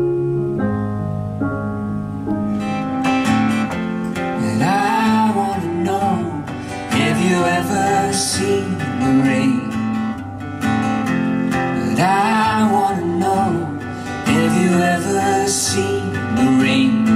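Live pop music: a woman singing, with wavering sustained notes, over stage-piano chords and a strummed acoustic guitar.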